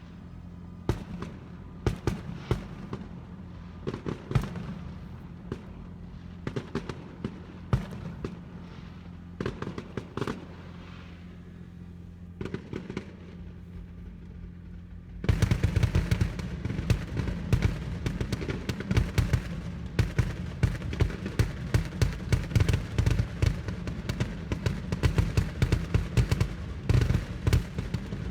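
Fireworks going off: scattered sharp bangs and cracks at first, then about halfway through a sudden dense barrage of rapid crackling bangs that keeps going. A steady low hum runs underneath.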